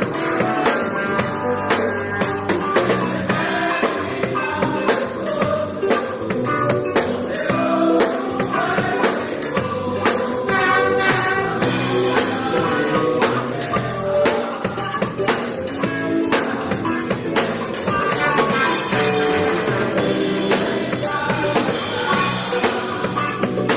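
Live gospel worship band playing with drum kit and tambourine, and voices singing.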